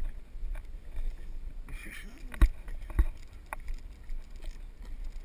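Low wind rumble on a car-mounted camera's microphone, with a brief voice about two seconds in and two sharp knocks about half a second apart soon after.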